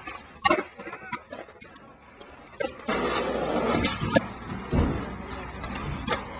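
Skateboard on concrete: several sharp clacks of the tail popping and the deck landing, and from about three seconds in the wheels rolling over concrete, with a dull thud near the middle.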